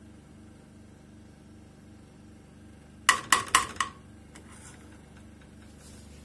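Kitchenware clinking: four quick, ringing clinks in under a second, about three seconds in, like a metal spoon knocking against a pan or dishes.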